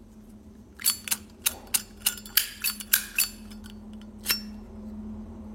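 Chrome Zippo lighter being handled: a quick run of about a dozen sharp metal clicks and clinks, starting about a second in and lasting a couple of seconds, then one more click a second later.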